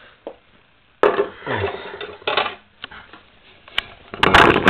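Hard knocks and rattles from the parts of a 12-inch table fan being handled, with the loudest cluster of knocks near the end.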